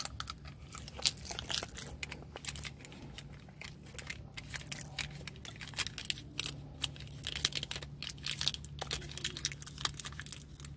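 Paper takeout bag crinkling and the foil lid of a plastic honey mustard sauce cup being peeled back, a run of quick crackles and rustles close to the microphone.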